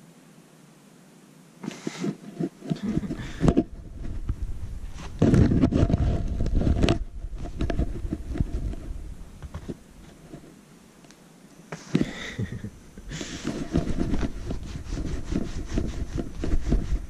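Irregular scraping and rustling of a cat teaser toy swept across tatami mats, with scattered clicks and deep bumps of handling noise on the microphone. It is quiet for the first two seconds and again briefly about two-thirds of the way through.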